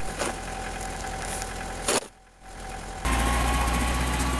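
A snow shovel scraping and digging into deep snow, with a sharp scrape about two seconds in. About three seconds in, the sound cuts to an orange backhoe tractor's engine running steadily, louder, with a low hum.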